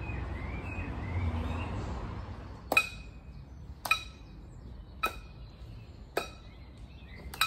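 The last steel pan chord dies away, with a few bird chirps over it. Then come five sharp metallic clinks, evenly spaced about a second apart, each with a short ring.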